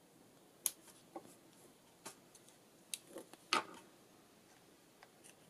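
Scattered light taps and clicks of fingers handling a paper craft tag on a craft mat, about six in the first few seconds, the loudest about three and a half seconds in, as the tag is picked up.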